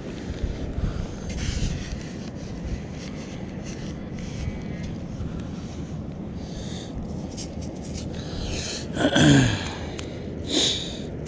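Hands scooping and scraping through loose beach sand, over a steady low rumble of wind on the microphone. About nine seconds in, a short breathy vocal grunt falls in pitch, with a briefer one about a second later.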